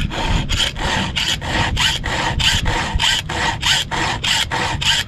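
A 4 mm round file drawn by hand across the cutter teeth of a Husqvarna chainsaw's 3/8 chain, sharpening it in quick, even filing strokes, about three a second.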